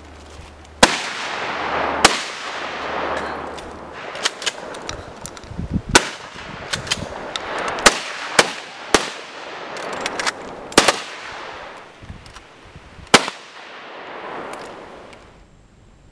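Gunshots from several rifles and a shotgun fired in a ragged volley, about fifteen shots at irregular intervals. Each shot trails a long rolling echo, and the last echo dies away near the end.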